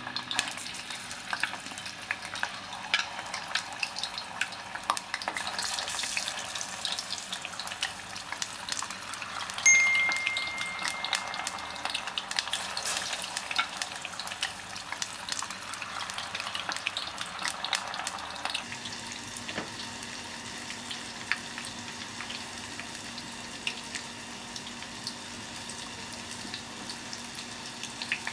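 Tofu cubes deep-frying in hot oil in a stainless steel pot: steady sizzling with many small crackles and pops. About ten seconds in, a brief bright ding is the loudest sound. The sizzle drops to a quieter, steadier level about two-thirds of the way through.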